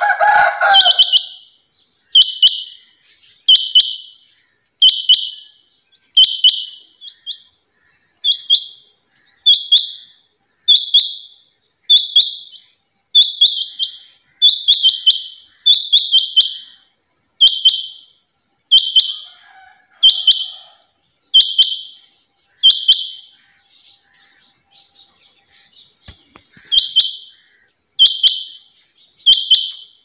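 Caged female rain quail calling: a short, high call repeated about every one and a half seconds, with a short pause near the end. A brief, lower-pitched sound overlaps the first call.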